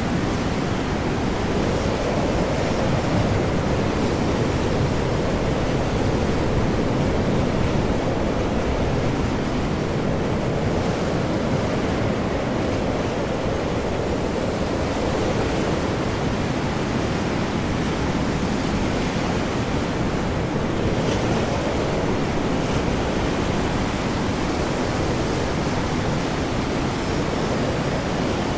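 Ocean storm sound: heavy, large waves and high wind blending into one deep, steady rushing noise.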